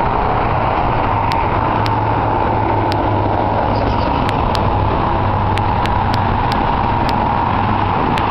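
Steady traffic noise from a busy multi-lane freeway, with cars and trucks passing continuously below.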